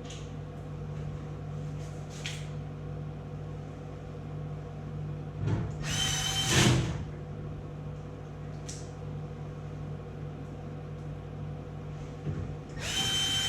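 Cordless drill-driver whirring in two short bursts, about five and a half seconds in and again near the end, driving the two screws back into a tumble dryer's top cover.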